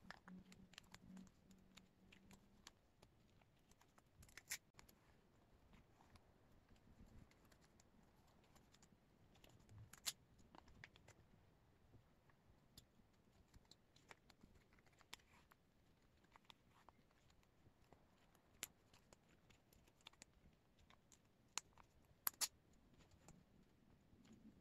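Photocards being handled and slid into the clear plastic sleeves of a binder: faint plastic rustling with scattered sharp clicks and taps, a few of them louder.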